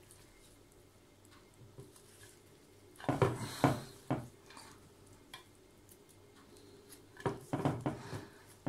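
Raw whole chicken being handled and shifted about in a glass baking dish. There is a cluster of knocks and taps against the glass about three seconds in, and another near the end.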